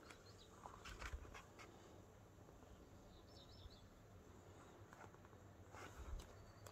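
Near silence with soft rustles of book pages being leafed through, around a second in and again near the end, and a brief faint high chirp in the middle.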